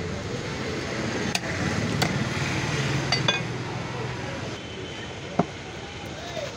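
Heavy curved cleaver chopping a lamb's head on a wooden block: several sharp, separate chops, the loudest near the end, over a low background hum.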